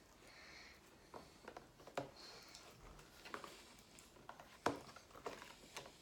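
Elmer's glue slime being kneaded by hand: faint sticky squishes with short clicking pops at irregular moments, the loudest a little before five seconds in.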